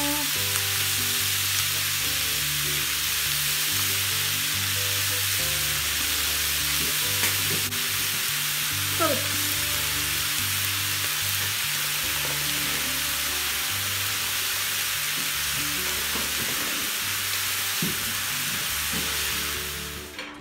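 Ground pork and beef with onion sizzling as it fries in a frying pan, a steady hiss that fades out near the end.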